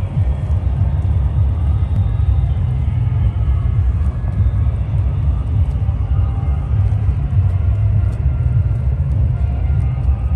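Wind buffeting the microphone: a heavy, unsteady low rumble that never lets up, with faint voices of passers-by far beneath it.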